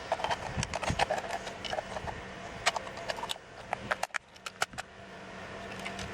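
Quick irregular clicks and taps of small plastic and metal parts as a pickup truck's door handle assembly is pried and worked apart by hand, over a steady low hum.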